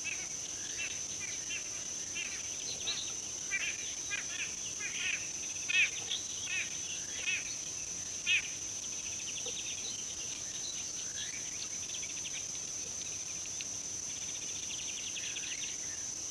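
A steady high-pitched insect drone from crickets or cicadas, with birds calling over it. The birds give many short chirps in the first half, the loudest about six and eight seconds in, then rapid trilling runs later on.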